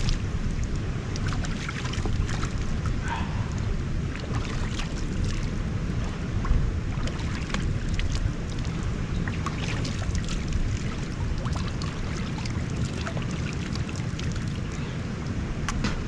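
Steady rushing of a waterfall, with wind buffeting the microphone and scattered short clicks throughout.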